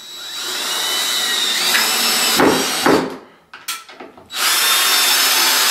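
Cordless drill-driver driving a stainless steel screw through a shower-rail wall bracket into a wall plug in a tiled wall, its motor whining. It runs for about three seconds, stops with a couple of short blips, and starts a second steady run about four seconds in.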